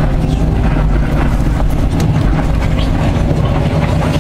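Liebherr R 944 C excavator's diesel engine running steadily under load, heard from inside the cab, with a faint steady whine above it. Scattered clicks and scraping of broken rock as the bucket digs through the stone pile.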